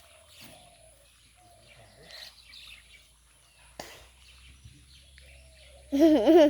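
Quiet outdoor ambience with faint bird chirps, a single sharp knock about four seconds in, and a brief loud wavering voice near the end.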